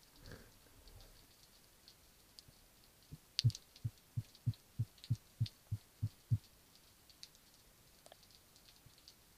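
Underwater through an action camera's housing: a run of about ten low pulses, about three a second, a spearfisher's short call to draw sea bream. Faint scattered crackle runs underneath.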